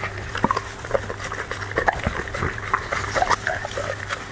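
A dog eating noisily: irregular wet chewing and crunching clicks, several to the second.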